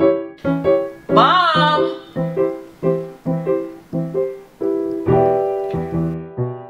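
Background piano music: a chord struck over and over, about three times a second, with a brief note that slides up and then down about a second in. About five seconds in a longer chord with a low bass note is held.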